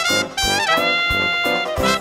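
Brass band music with trumpets over a steady beat, one note held for about a second in the middle.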